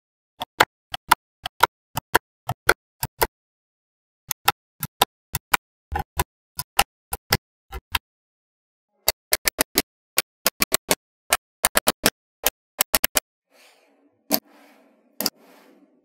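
Small magnetic balls clicking sharply together one at a time as they are snapped into place, in runs of about two clicks a second with quicker clusters in the second half. Near the end comes a softer scraping rustle.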